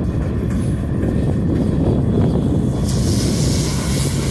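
Norfolk Southern diesel-electric locomotives passing close by, their engines making a steady low rumble. A brighter hiss joins about three seconds in as the second unit draws level.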